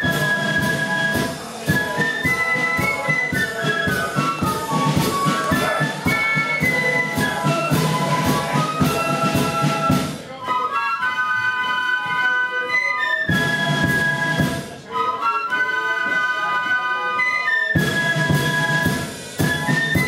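A flute band plays a march, with many small keyed flutes in unison on the melody over side drums and a bass drum. Twice the drums drop out for a couple of seconds, leaving the flutes alone.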